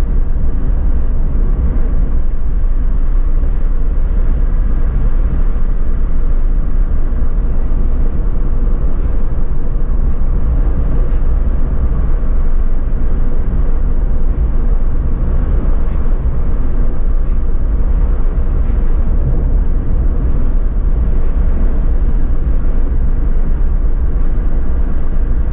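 Suzuki Alto driving at a steady speed on a wet road, heard from inside the cabin: a continuous low rumble of engine and tyre noise.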